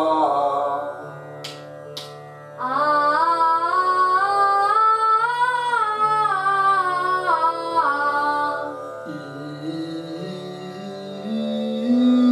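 A man's voice sings a six-note pitch exercise on a held vowel over a steady drone, stepping up the scale and back down in even steps. Two sharp clicks come between the phrases, and the drone sounds on alone after the singing stops.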